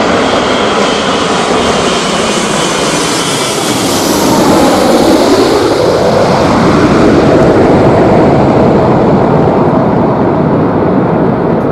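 Jet airliner passing close by: a loud, steady engine rush, with a whine that drops in pitch around five seconds in as it goes past.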